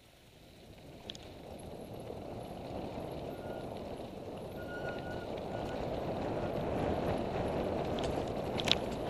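Mountain bike rolling down a dirt trail: a rushing noise of tyres on dirt and air past the microphone that grows steadily louder as speed builds, with a few clicks and rattles from the bike, the sharpest near the end.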